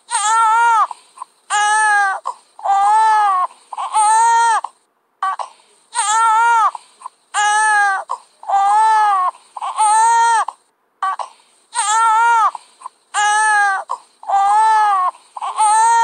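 A baby crying hard: a run of about a dozen loud wails, each about a second long and rising then falling in pitch, with short gaps between them and a slightly longer break twice.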